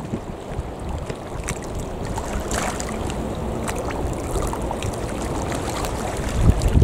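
Wind buffeting the microphone over choppy water, with small waves lapping and splashing; the low rumbling gusts grow stronger near the end.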